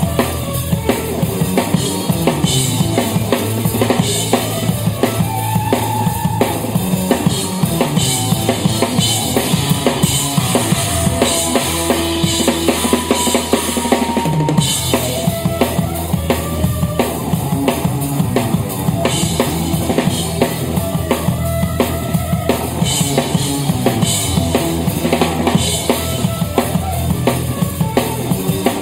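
Live jazz-rock fusion band: a drum kit played busily and loudly, with kick drum, snare and cymbals to the fore, over electric bass, keyboard and guitar.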